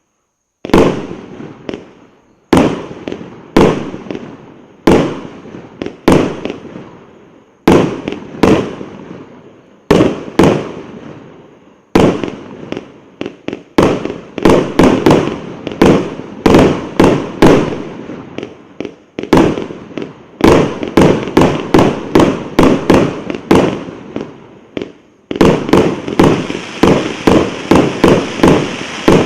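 A multi-shot fireworks battery, the 'Ivan Grozny' (Иван Грозный) cake, firing. Sharp bangs come about one to two seconds apart at first, each trailing off. From about halfway they come faster in clusters, and near the end they merge into a dense, continuous crackle.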